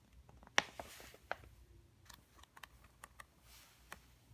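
A paper instruction manual being handled and its pages turned: a run of light clicks and taps with a soft rustle of paper.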